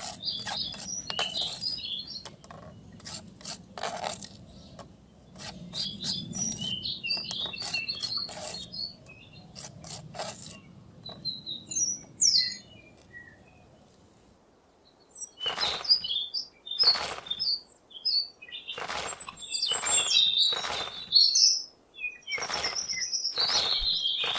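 Small birds chirping in quick bursts, mixed with many sharp clicks or taps. A quieter stretch comes a little past the middle, then the chirping and clicking pick up again.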